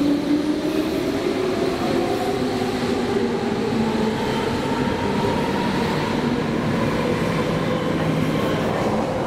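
Berlin S-Bahn electric train pulling away from the platform, its traction motors giving a whine that rises steadily in pitch as it gathers speed, over the rumble of the train running on the rails.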